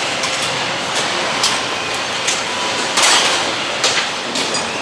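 Motorcycle assembly-line noise: a steady factory din with scattered short metal clinks and knocks from tools and parts, the loudest about three seconds in.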